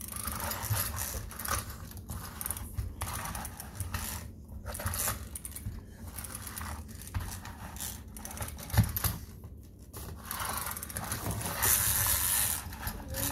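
Wind-up mini fishing game toy running: its small clockwork gear train whirs and rattles steadily as the plastic pond turns, mixed with plastic clicks and scrapes from handling the toy, and one sharper knock about nine seconds in.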